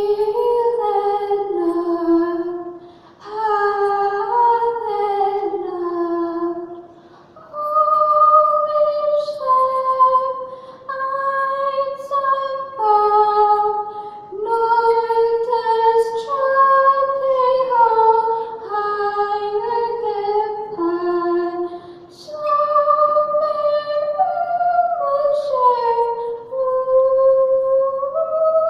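A female voice singing a song unaccompanied, in phrases a few seconds long with short breaths between them.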